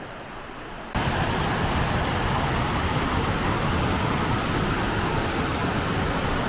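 River rapids: white water rushing over rocks in a loud, steady, even noise that comes in suddenly about a second in. Before that there is a quieter hiss of flowing water and wind.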